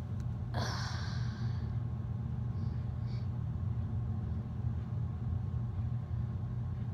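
A steady low background hum, with a breathy sigh about half a second in.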